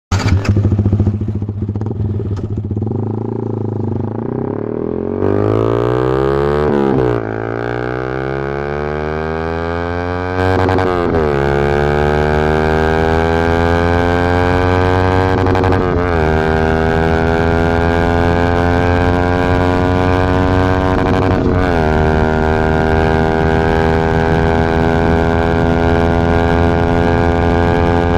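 Yamaha MT-15's 155 cc single-cylinder engine through a full-system aftermarket exhaust. It runs steadily at first, then pulls hard through the gears: the note climbs steadily in each gear and drops sharply at each upshift, about four shifts in all.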